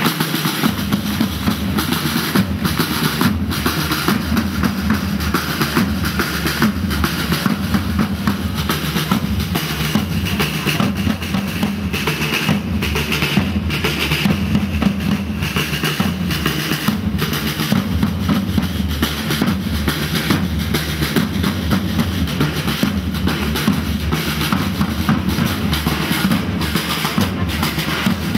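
Snare and bass drums of a flag-waving troupe's drum corps beating a steady, unbroken rhythm.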